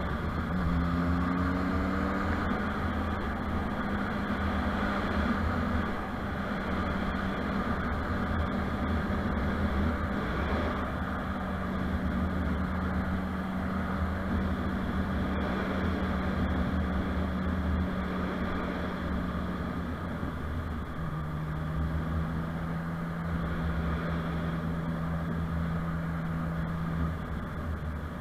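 Motorcycle engine running at steady revs on the move, over a steady rush of wind and road noise. The engine note rises briefly about a second in, drops lower about twenty seconds in and comes back up near the end.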